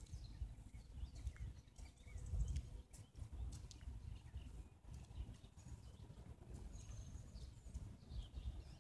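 Low rumble of an EN57AL electric multiple unit pulling slowly into a platform, with faint bird chirps above it.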